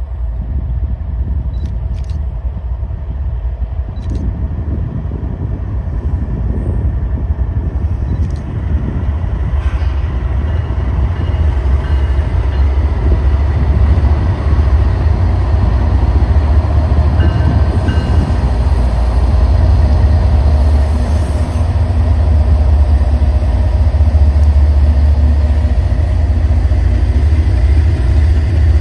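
Canadian Pacific double-stack intermodal train passing: the diesel locomotives' deep rumble grows steadily louder as they come by, followed by the steady rumble of the loaded well cars rolling past, with a few faint brief squeals.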